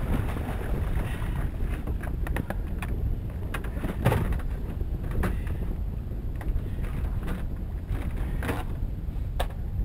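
Wind rumbling on the microphone and choppy water against a small open boat, with scattered knocks and thumps from handling gear in the boat, the loudest about four seconds in.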